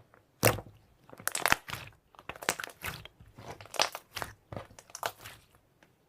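Slime being squeezed and pressed by hand, a run of short crackling squishes about two a second that stops about five and a half seconds in.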